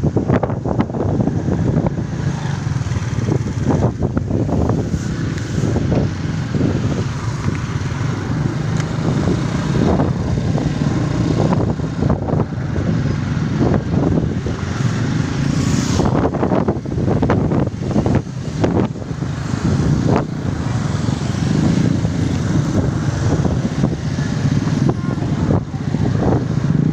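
Strong wind buffeting the microphone in gusts: a loud, continuous low rumble with frequent sudden surges.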